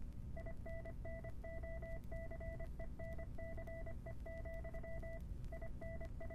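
A steady electronic beep tone keyed on and off in a string of short and long pulses, like Morse code, over a low steady hum.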